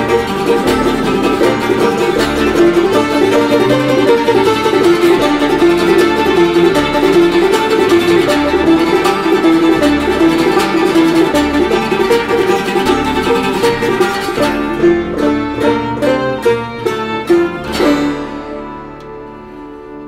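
Acoustic folk instrumental music led by plucked strings. It plays densely, then thins about 14 seconds in to single plucked strokes, and a last strong chord near the end rings out and fades away.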